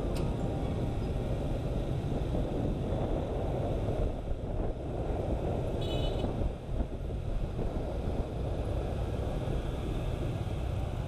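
Motorcycle ride in dense scooter traffic: engines running with steady road and wind noise. A brief high horn beep comes about six seconds in.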